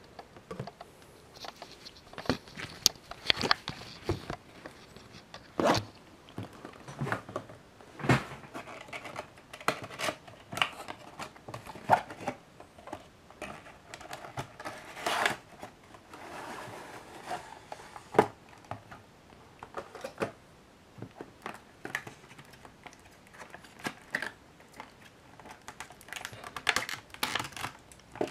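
Hands unpacking a boxed die-cast model airliner: the cardboard box and its insert sliding and scraping, and the yellowed plastic cradle crinkling and clicking, in irregular rustles and sharp clicks.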